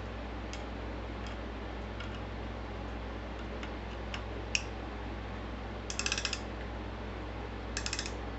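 Scattered light mechanical clicks and one sharper click, then two short runs of rapid ratcheting clicks, over a steady low hum.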